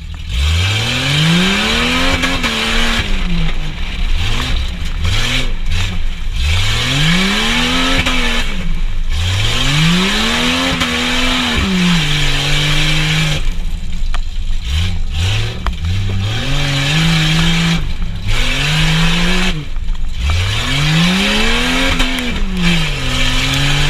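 Truck engine being revved hard on a dirt course, its pitch climbing and dropping again over and over, about every three to four seconds, under a loud steady rushing noise.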